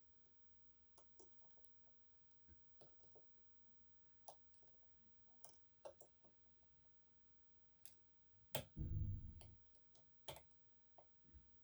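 Faint, irregular small clicks of a short hook pick and tensioner working the sliders inside an EVVA 3KS high-security lock, with a duller handling knock about nine seconds in.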